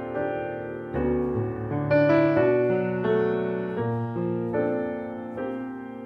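Background solo piano music: a slow melody of struck notes and chords, a new note or chord about every second, each ringing out and fading.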